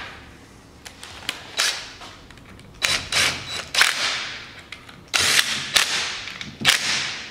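Cordless impact driver hammering in several short bursts, then a longer run about five seconds in, as it drives home the bolt of the engine's cam chain tensioner.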